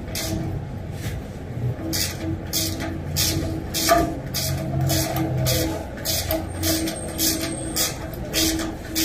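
Rhythmic bursts of hissing, about two or three a second, over a low steady hum from shop machinery.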